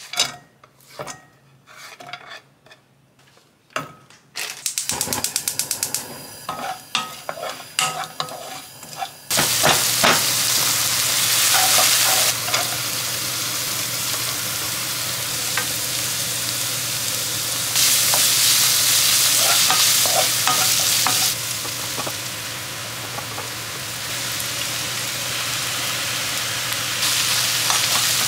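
Scallions, carrot and shiitake mushrooms stir-frying in olive oil in a stone-coated nonstick pan, stirred with a wooden spatula. It starts as scattered clicks and taps, then from about nine seconds in a steady, loud sizzle.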